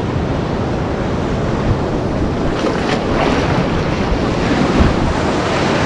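Sea waves surging and breaking around someone standing waist-deep in the water, with wind noise on the microphone. The wash grows louder about two and a half seconds in.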